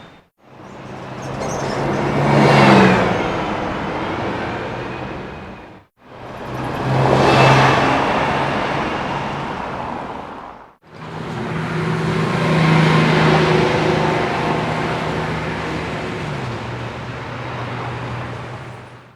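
Three separate bus pass-bys, one after another with brief silences between. Each time the engine grows louder as the bus approaches, peaks as it passes and fades away; the last pass is the longest, and its engine note drops partway through.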